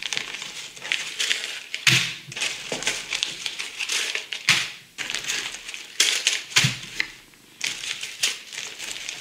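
Clear plastic bags full of small plastic bricks crinkling and rattling as they are handled, with several sharper knocks as bags are set down on a wooden floor.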